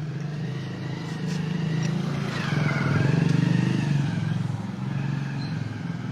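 A motorcycle engine running, swelling to its loudest about three seconds in with a falling pitch, then easing off.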